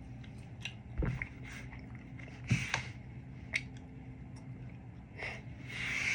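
A person chewing food, with scattered short crunchy clicks, over a steady low hum.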